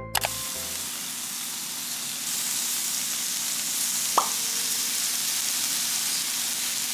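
Marinated beef slices sizzling steadily on an electric indoor grill, with a single sharp metal clink of tongs about four seconds in.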